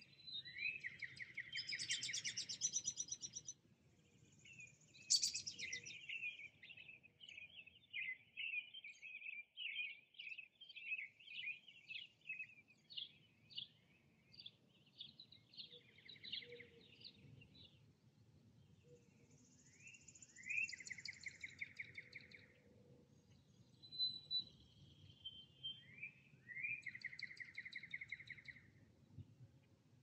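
Songbirds singing in a woodland. One song, a sharp rising note followed by a buzzy trill, comes three times: at the start, about 20 seconds in and near the end. A long run of quick, varied chirping notes fills the stretch from about 5 to 15 seconds in. A faint low background noise lies underneath.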